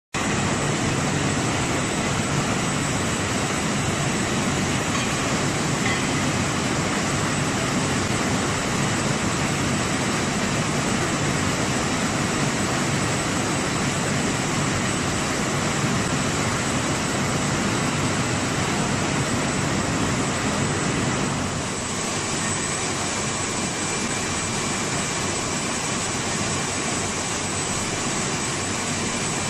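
Tissue paper machine running, a steady loud mechanical noise with a thin high whine over it; the noise shifts slightly in tone about 21 seconds in.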